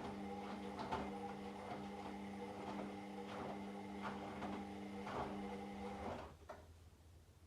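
Washing machine running a wash: a steady motor hum with soft knocks of laundry tumbling in the drum about once a second. The motor stops suddenly about six seconds in, followed by a single click.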